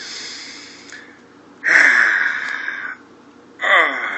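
A man's exaggerated wordless 'dad noises'. They start with a fading breathy exhale. About a second and a half in comes a loud rasping breath, and near the end a short grunt that falls in pitch.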